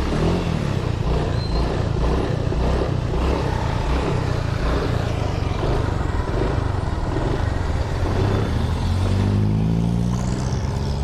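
Automatic scooter's small engine running weakly after being flooded, with water suspected in the engine block. Near the end it is revved, its pitch climbing slowly as the throttle takes time to respond.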